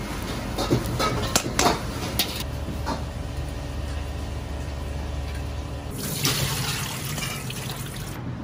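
A metal strainer knocking and scraping against a wok as blanched shreds are scooped out of boiling water, then tap water running steadily into a metal bowl, and a louder rush of water about six seconds in as it is poured off through a plastic colander.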